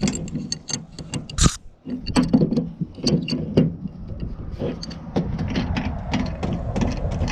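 Caps being unscrewed and handled at the mini split's refrigerant line fittings: irregular metallic clicks, knocks and scrapes, with one short, sharper burst about a second and a half in.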